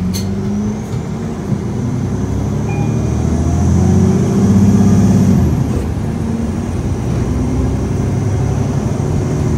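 2009 Nova Bus LFS city bus under way, heard from inside the passenger cabin: engine and drivetrain running with road noise, pulling louder about four to five seconds in and then easing off. A faint high whine climbs in pitch over the first few seconds.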